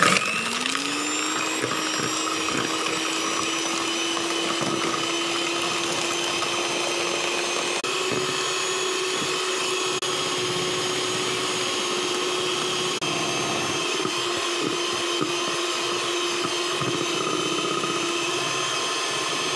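Miyako electric hand mixer running at high speed, its beaters whisking eggs, sugar and cake emulsifier into a pale foam. The motor spins up with a rising whine in the first second, then runs at a steady pitch.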